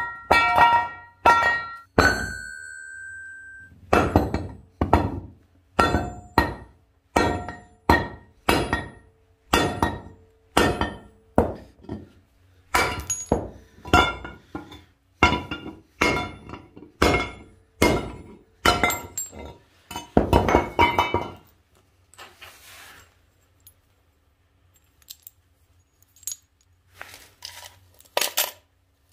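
Hammer blows breaking up an aluminium scooter crankcase on a steel rail anvil: a steady run of sharp, ringing metal strikes, a little more than one a second, stopping about 22 seconds in. After that come a few lighter clinks of broken aluminium pieces being dropped into a tin can.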